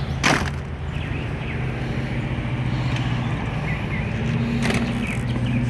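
A steady low engine hum, with a sharp click shortly after the start and another near the end, and faint bird chirps.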